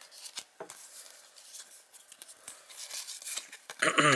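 Stack of cardboard hockey trading cards being thumbed and slid apart in the hands: soft rubbing and scraping with many light clicks of card edges. Near the end comes a short vocal sound that falls in pitch.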